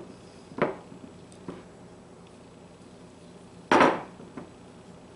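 A glass mixing bowl knocking on the counter as chicken thighs are turned in flour by hand. There is a sharp knock just over half a second in, a faint one after it, and the loudest knock near four seconds in.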